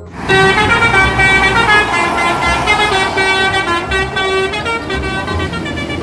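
Indonesian 'telolet' bus horn playing a tune: several horn tones sound together and step up and down from note to note, over the low rumble of the vehicle.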